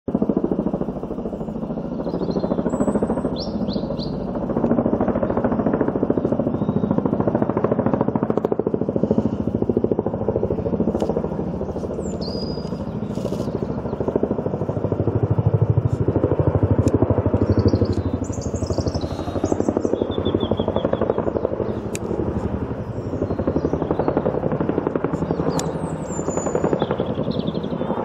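Boeing CH-47 Chinook tandem-rotor helicopter flying low overhead, its rotors beating out a fast, heavy chop. The chop swells and fades and is loudest about halfway through.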